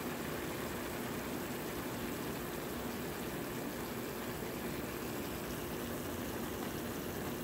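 Asparagus and garlic sizzling in oil and liquid in a stainless steel frying pan: a steady hiss, with a steady low hum under it.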